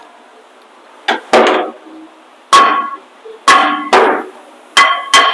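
Hammer blows on a stuck rear brake rotor of a 2018 Ram 2500, the metal ringing after each strike. There are about eight blows, uneven and often in pairs, starting about a second in. The rotor is seized on, perhaps held by the parking brake shoe, as the mechanic suspects.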